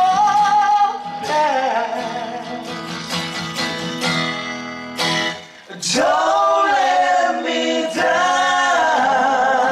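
A man singing solo while strumming an acoustic guitar. The sound drops away briefly about halfway through, then the voice comes back strongly on long held notes.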